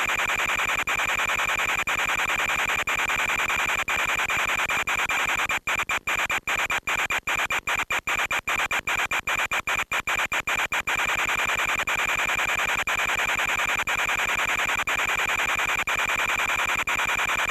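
Steady hiss with a high, steady whine on top, typical of the audio from an FPV plane's onboard recording. In the middle it cuts out briefly many times in quick succession, then carries on steadily.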